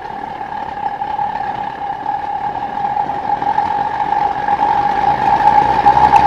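Homemade naturally aspirated propane forge burner of black pipe, turned very low, running with a steady pulsing buzz that sounds just like a pulse jet. It gets louder over the last couple of seconds.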